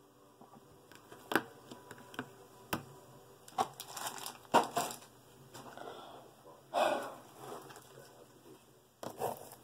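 Small cardboard boxes and figures being handled: bursts of crinkling and rustling packaging with irregular sharp clicks and knocks as things are picked up and set down.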